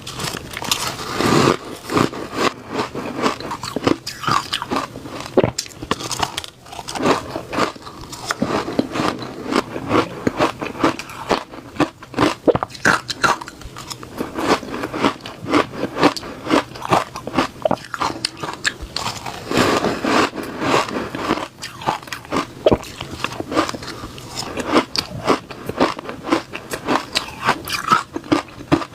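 Close-up crunching of reshaved refrigerator ice being bitten and chewed, with rapid irregular crunches several times a second.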